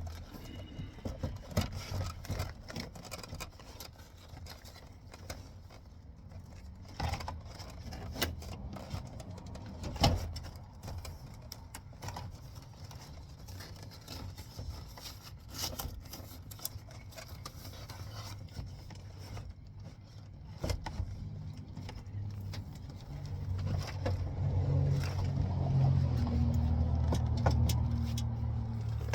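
Scattered clicks, taps and small rattles of hands handling plastic door trim, wiring and small parts while a speaker is fitted into a truck door, with one sharper knock about ten seconds in. A steady low rumble builds in the last several seconds.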